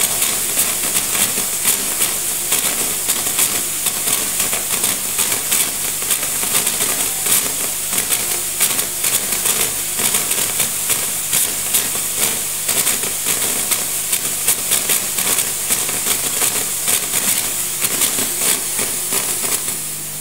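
Gaggia Classic Pro espresso machine steam wand venting steam into a towel: a steady, loud hiss with a crackling sputter, over a faint low steady hum. It starts to die away at the very end as the steam is shut off.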